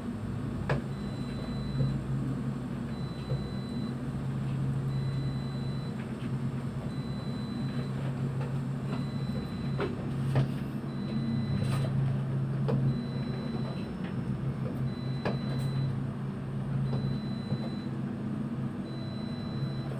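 Steady low machinery hum, as of shipboard engines or generators, with scattered sharp clicks and a faint high beep repeating about every two seconds.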